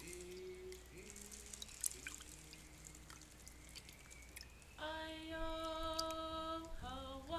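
A woman's voice singing long held notes, faint at first and louder from about five seconds in, with the pitch sliding between notes near the end. A few faint clicks sound under it.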